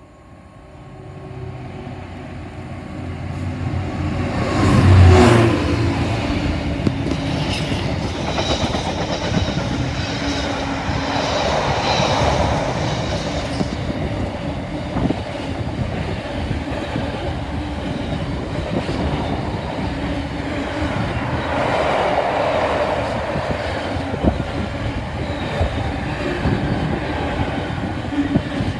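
A Class 66 diesel freight locomotive grows louder as it approaches and passes, with its engine loudest about five seconds in. A long train of container flat wagons then rolls past, the wheels knocking steadily over the rail joints.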